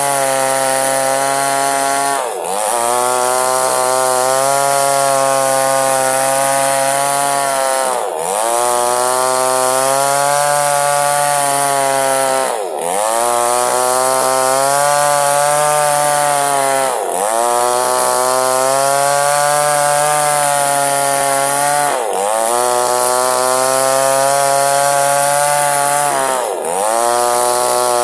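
Two-stroke chainsaw running at high revs, ripping a log lengthwise into two halves. The engine pitch dips sharply and climbs back about six times.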